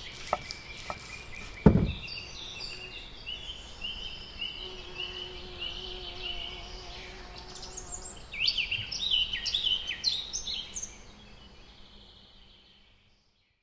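Songbirds singing outdoors: a run of repeated short chirps, then a quicker burst of higher notes about eight seconds in. There is one sharp knock near the start, and the sound fades out near the end.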